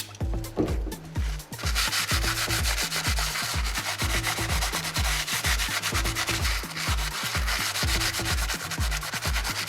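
Background electronic dance music with a steady kick drum and bass line. From about a second and a half in, a dense, scratchy rubbing noise sits over it.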